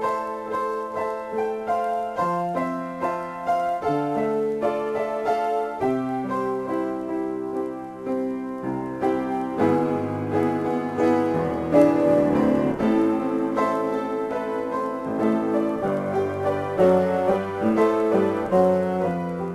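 Solo piano improvisation: held chords under a slow-moving melody, growing busier about halfway through with a burst of fast repeated notes before settling back into sustained chords.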